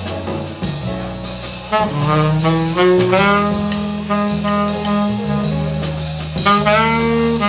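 Jazz playing, with a saxophone carrying a melody of sliding notes over a walking bass line and drum and cymbal hits.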